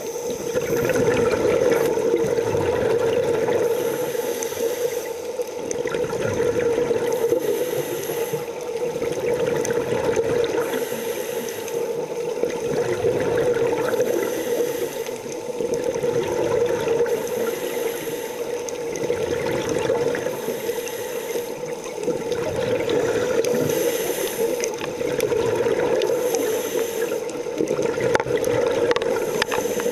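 Scuba diver breathing through a regulator underwater: a hiss and bubbling that come back about every three to four seconds, over a steady hum.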